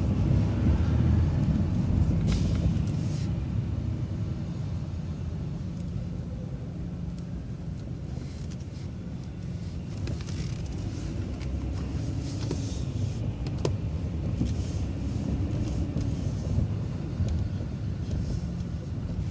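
City transit bus running at low speed, its engine and drivetrain giving a steady low rumble that eases off over the first few seconds, with a few scattered clicks and rattles.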